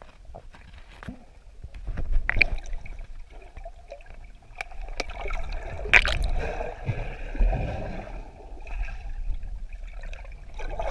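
River water heard through a camera held underwater: muffled gurgling and sloshing with scattered sharp clicks and knocks, growing louder about two seconds in.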